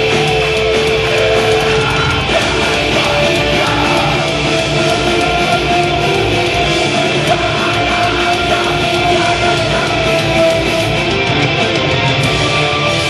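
Metalcore band playing live and loud: heavy electric guitars and drums, recorded from inside the crowd.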